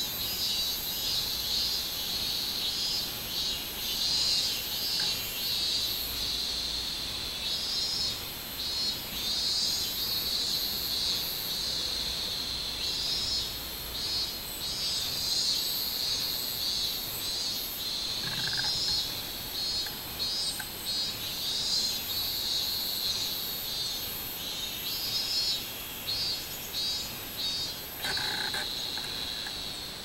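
Robust cicadas (minmin-zemi, Hyalessa maculaticollis) singing in a tree: a high, pulsing chorus that goes on with short breaks.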